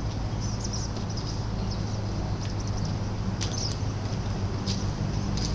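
Engine of a 12-ton Plymouth narrow-gauge switcher locomotive idling with a steady low hum. Short high chirps come through it now and then.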